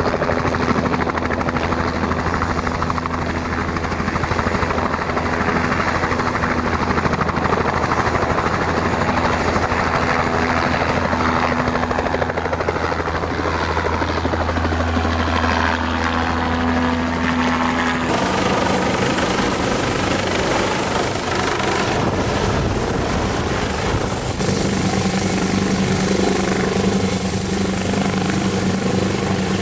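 A single-turbine Bell light helicopter, of the 206 JetRanger type, hovering with steady rotor beat and a high turbine whine, then passing close overhead with its pitch sweeping down. After a cut, a larger helicopter runs its rotors and turbines on the tarmac as it readies to lift off.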